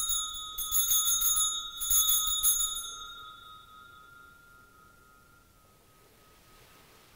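Altar bells rung at the elevation of the chalice during the consecration, in three quick shakes. The ringing then fades to one lingering tone over the next few seconds.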